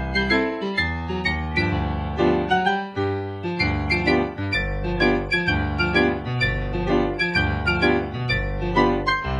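Piano music, quick runs of notes over a bass that lands about once a second.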